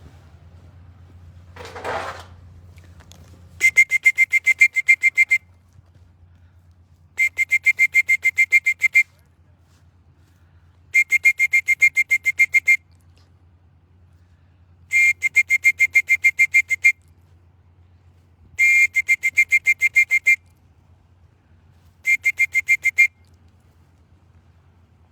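A trilling whistle blown in six short bursts, each about two seconds of rapid warbling pulses, repeated every three to four seconds: a loft whistle calling arriving racing pigeons in to land and trap.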